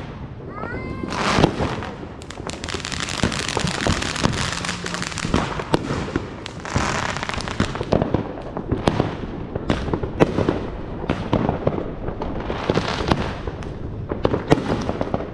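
Consumer fireworks going off: a rapid run of pops and cracks with stretches of hissing crackle, and a short whistle about a second in.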